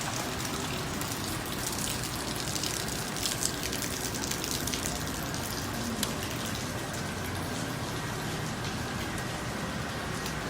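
Steady rushing water, an even hiss with no rhythm or tune, with a couple of faint ticks, cut in abruptly between stretches of music.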